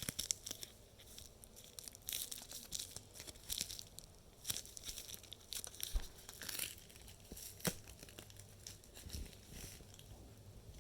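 Plastic packaging being crinkled and torn by hand, in scattered short rustles with a few sharp clicks.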